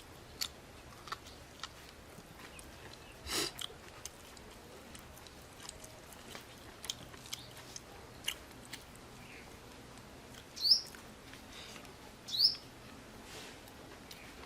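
Chewing and small wet mouth clicks of someone eating, with two short, loud bird chirps about eleven and twelve and a half seconds in.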